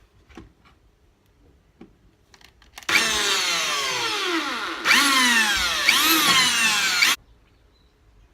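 Electric drill drilling a pilot hole through the car's sheet-steel firewall. It starts about three seconds in, and its whine drops in pitch as the bit bites. It revs up again about halfway and drops again, then stops suddenly.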